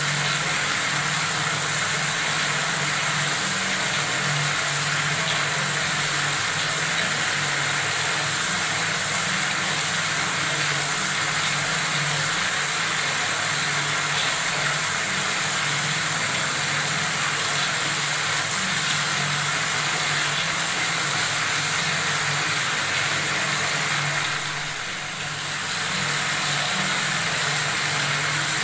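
Water faucet running steadily, a constant stream splashing and hissing, with a brief softening about three-quarters of the way through.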